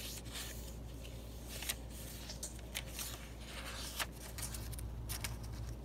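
Paper pages of a handmade journal made from an old hardback book being handled and turned, with soft rustles and a few short crackles of paper, over a faint low hum.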